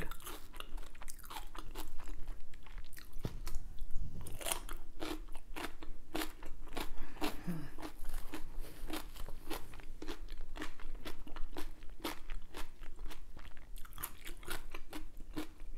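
A person chewing crisp food right at the microphone, with many sharp, irregular crunches several times a second.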